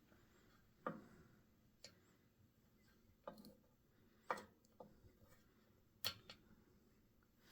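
Sears Kenmore 12-inch oscillating table fan, built by Knapp-Monarch, coasting down with its oscillator engaged: five or so sharp clicks about a second apart over a faint background.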